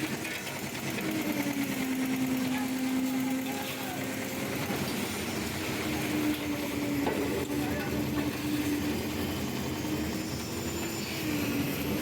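Engine of a concrete mixer-and-lift machine running steadily, its pitch drifting slightly up and down, over a constant mechanical rumble.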